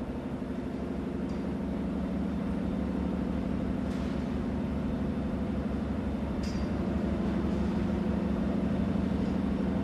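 Steady machinery drone of a ship's engine room: a low, fast-pulsing hum, with a few faint ticks over it.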